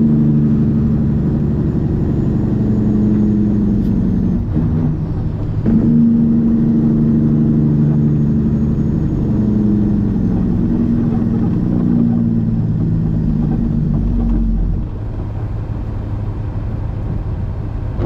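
Heavy truck's diesel engine running under load, heard from inside the cab, with a brief break in the engine note about five seconds in. Near the end the engine note drops away to a low rumble as the truck comes off the throttle and slows.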